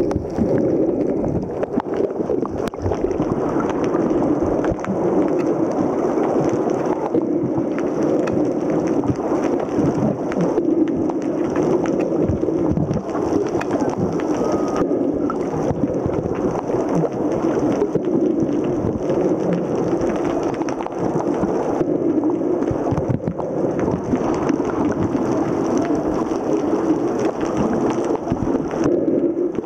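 Muffled underwater sound from a camera held below the surface: a steady low rushing with scattered faint crackles and ticks.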